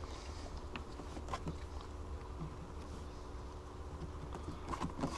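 A steady low hum with a few faint taps and scratches of hand work, a pencil marking positions on the truck cab's window frame.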